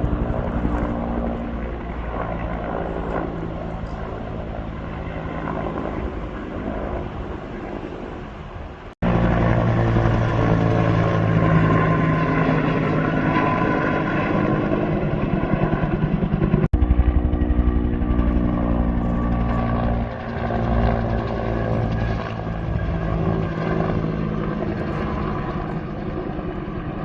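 Helicopter rotor and turbine running steadily, the blades beating in a fast even rhythm. The sound breaks off abruptly about nine seconds in and resumes louder, with another sudden break near seventeen seconds.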